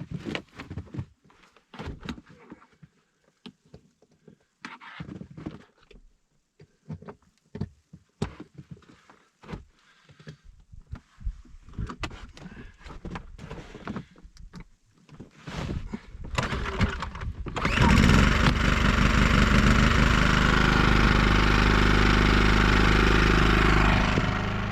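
Knocks and handling clatter, then a petrol generator starts about three-quarters of the way in and runs steadily and loudly, boosting the off-grid batteries.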